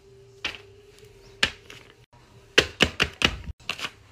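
A series of sharp knocks and taps: one about half a second in, another about a second and a half in, then a quick run of about six close together in the second half. A faint steady tone sits underneath them.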